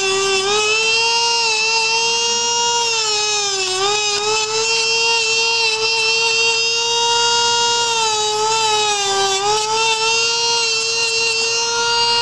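Handheld rotary nail grinder with a sanding drum, running as a steady high whine while filing a dog's toenails. Its pitch dips briefly a few times.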